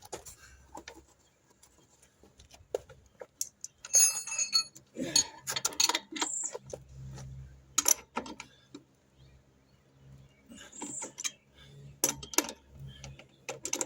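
Steel wrenches clinking and knocking on a Yamaha TW200's rear axle nut and axle as it is worked tight. The sound is a series of scattered clicks and clanks, with one bright ringing clink about four seconds in.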